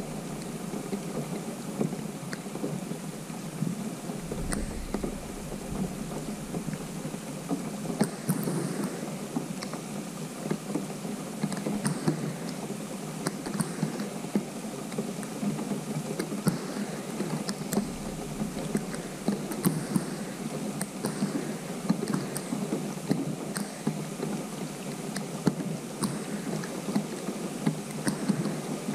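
Steady rain falling on a pond's open water: a continuous hiss made of many small, sharp drop ticks. Twice there is a brief low rumble of wind on the microphone.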